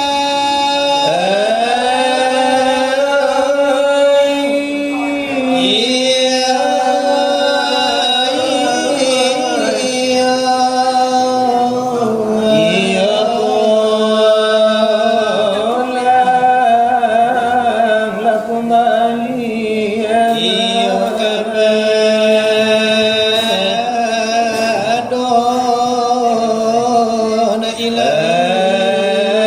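Selawat dulang chanting: voices singing a long melismatic religious verse, holding notes that slide and turn up and down, two vocal lines sounding together.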